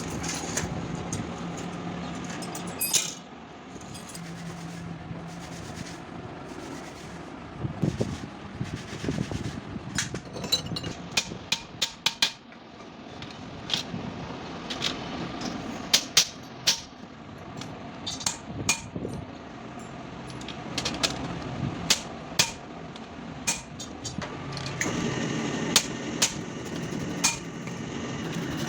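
Hand tools knocking and tapping on metal during work on a clutch plate: irregular sharp strikes, a few at a time with gaps, over a steady low hum.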